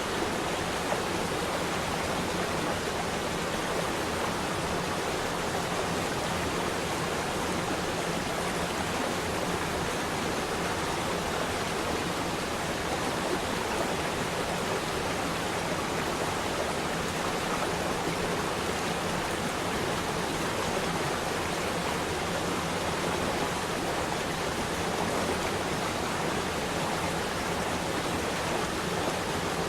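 Flowing water rushing steadily, a stream or small waterfall.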